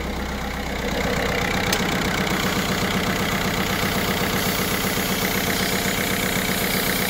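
Citroën 1.6 HDi four-cylinder diesel engine idling, louder about a second in. One cylinder is not firing; the owner puts the fault down to a cracked cylinder wall and wonders whether it is the head gasket.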